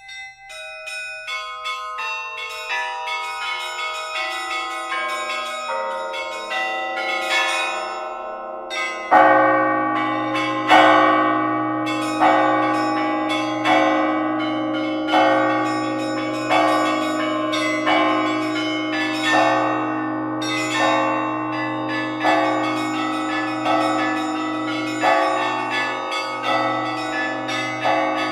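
A peal of church bells. It opens with quick strikes stepping down the scale from high to low, then about a third of the way in a deep, louder bell joins, striking about every second and a half over the continuing ringing.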